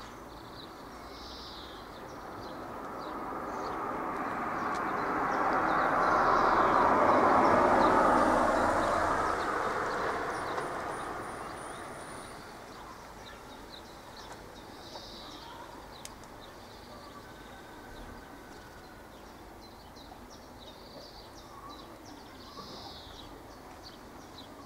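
A vehicle passing by: a rushing noise that swells, peaks and fades away over about ten seconds, with birds chirping.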